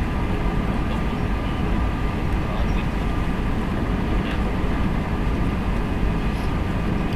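Steady engine and airflow drone of an Airbus A320 airliner, even in level, with a thin steady whine above it.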